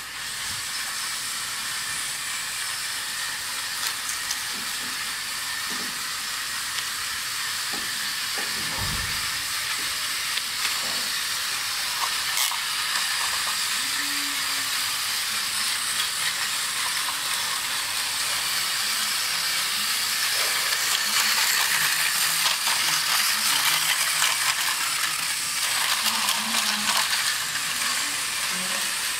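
A steady hiss with a few faint clicks, growing somewhat louder past the middle.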